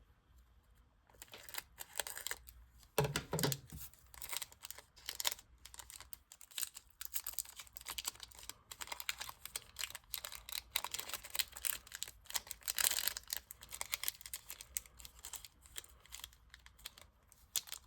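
Baseball card pack wrappers crinkling and tearing as packs from a Topps Chrome blaster box are opened and the cards handled. The sound is a rapid patter of rustles and small clicks.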